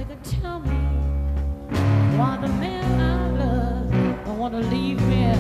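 Slow blues-rock played by a full band with electric guitar, bass and drums, a lead line bending up and down in pitch over held bass notes. This is a 1968 live recording.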